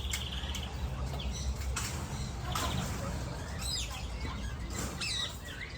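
Aviary parrots chirping and calling in short, high-pitched bursts, with a short buzzy trill at the start and a cluster of calls about four and five seconds in, over a low steady rumble.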